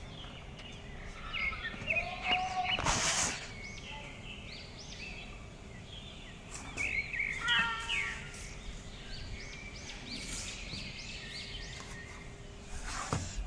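Cats meowing for their food a few times, the clearest call about halfway through, with small birds chirping repeatedly throughout.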